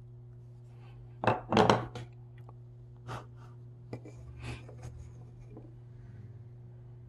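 A carving knife and small wooden parts knocking on a wooden workbench. The loudest part is a quick cluster of sharp knocks a little over a second in. Lighter knocks and clicks follow at about three and four and a half seconds as the hollowed wooden carving and the wooden bead eyeballs are handled.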